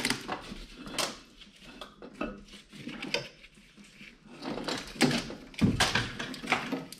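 Metal clunks, knocks and scrapes as an LS V8's aluminium cylinder head is worked loose and lifted off the engine block, the loudest knocks about a second in, around three seconds in and a cluster near the end.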